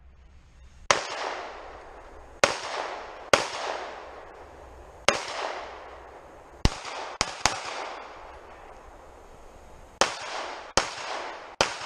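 Pistol shots fired in a practical shooting stage, about ten at uneven spacing, some in quick pairs and others with pauses of a second or two between, each followed by a long echo.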